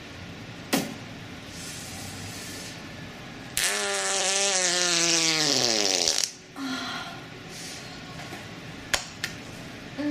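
Fart sound effect about three and a half seconds in: one long toot lasting about two and a half seconds, falling steadily in pitch, with a hiss over it. A few sharp clicks come before and after it.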